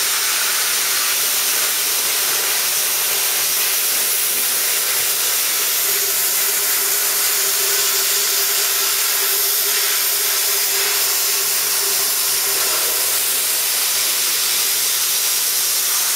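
A PT-31/LG-40 plasma cutter torch cutting sheet steel: the arc and air jet make a loud, steady hiss with a faint steady hum underneath. With a new ceramic swirl ring fitted, the torch is cutting cleanly.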